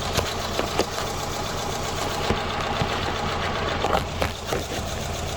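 Subaru Impreza's flat-four engine idling unevenly, with irregular sharp ticks over its steady running. It is misfiring on cylinders 1 and 3, which the owner has not been able to cure.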